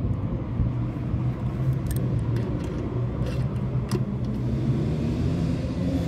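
Steady low rumble and hum, with a few short light metallic clicks from hand tools working the terminal lugs of an electrical disconnect switch.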